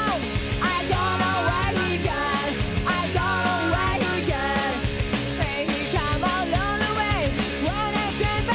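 Punk rock song playing: a band with a sung lead vocal over a steady beat.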